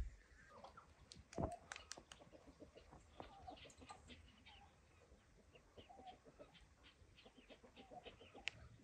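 Chickens clucking faintly, with scattered light ticks and one louder knock about a second and a half in.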